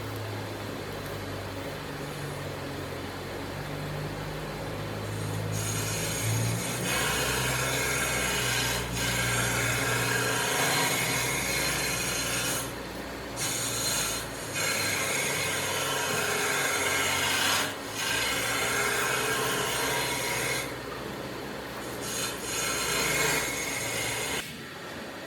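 A tool scraping and rubbing on wood in long continuous passes, pausing briefly a few times. A low hum sits under the first few seconds.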